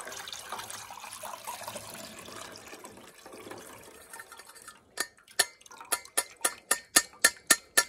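Boiled garlic water pouring from a stainless steel saucepan through a plastic sieve into a steel bowl, a steady splashing trickle. About five seconds in the pour gives way to a quick run of sharp clicks, roughly four a second.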